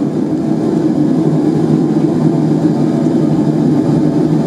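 Forge running with a steady, low, loud noise while a knife blade heats in it for normalising.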